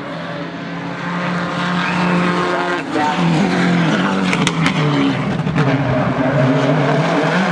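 Rally car at full throttle, its engine note climbing in pitch through the gears with a brief lift and shift about three seconds in, getting louder as it approaches.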